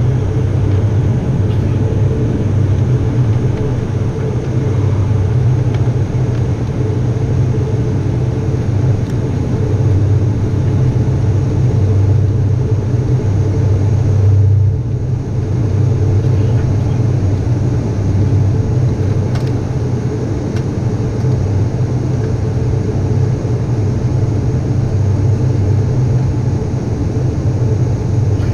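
Steady low drone of an ATR 72's twin turboprop engines and propellers, heard inside the passenger cabin during the climb after take-off.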